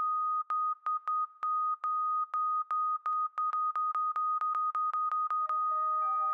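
A single steady censor-bleep tone switched on and off in an uneven rhythm of short and long beeps, like Morse code, the beeps coming faster toward the end. About five seconds in, synthesizer notes at other pitches join in under it.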